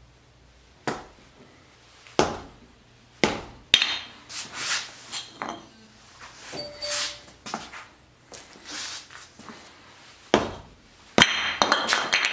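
A curved laminated-wood piece knocking and clattering on a ceramic tile floor, with sneaker scuffs on the tile. Single sharp knocks come about a second apart at first, then scrapes and lighter knocks, and a busier burst of clatter near the end.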